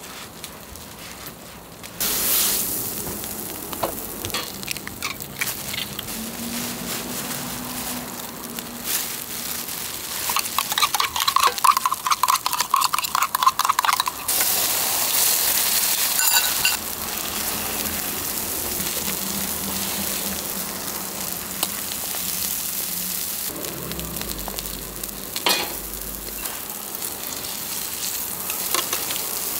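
Egg and bread frying on a hot flat-top griddle: a steady sizzle that jumps louder about two seconds in and again about halfway through. In between comes a few seconds of quick rhythmic clatter.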